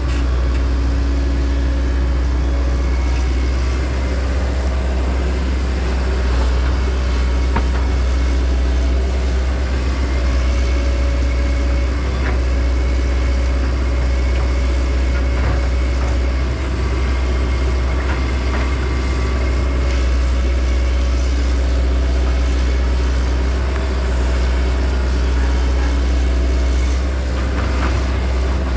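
Heavy diesel equipment, an excavator and a tractor, running steadily while stumping, with a strong low hum and engine tones that shift a little in pitch. Faint knocks come through here and there.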